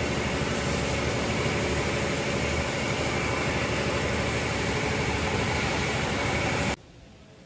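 Automatic rollover car wash machine running steadily as its brush gantry travels back to its home position after the wash-and-dry cycle, a loud even mechanical noise that cuts off suddenly near the end.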